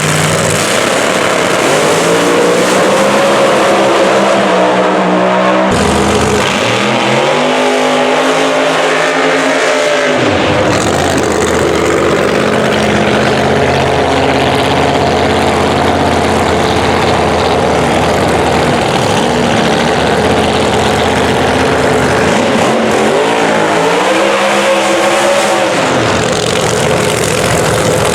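Supercharged Hemi drag-racing engine running loudly, revved up and back down twice, about seven seconds in and again about twenty-three seconds in.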